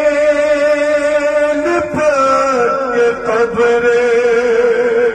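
A man's voice chanting a Shia noha lament in long, held notes into a microphone. The first note breaks off about two seconds in, and the next slides down in pitch and is held.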